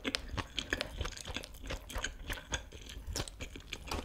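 Close-miked chewing of a mouthful of kimchi fried rice with melted cheese: a quick run of small wet clicks and soft crunches, several a second.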